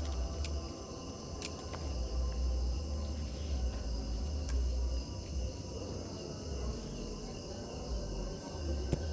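Crickets trilling steadily in a night-time insect chorus over a low rumble, with a few scattered sharp clicks.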